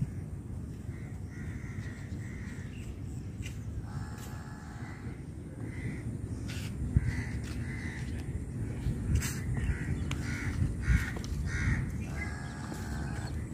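Birds calling outdoors: a run of short calls that comes faster in the second half, about two a second, with two longer calls, one about four seconds in and one near the end, over a steady low rumble.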